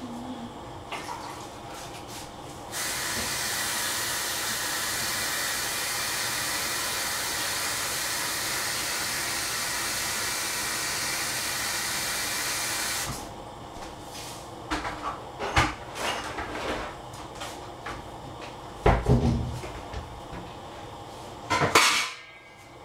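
Water running from a kitchen tap for about ten seconds, starting and stopping abruptly, followed by several sharp knocks and clatters of kitchenware.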